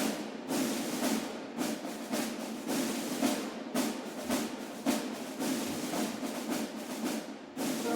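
Background music: a snare drum playing march-style rolls and beats on its own, with short breaks about every two seconds. The melody comes back in right at the end.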